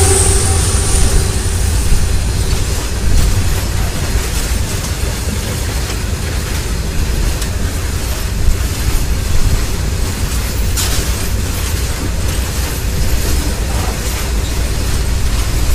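Open BOXN freight wagons rolling past at speed: a steady rumble and hiss of steel wheels on the rails, with a few sharp clanks from the wagons and rail joints, the loudest about two-thirds of the way through.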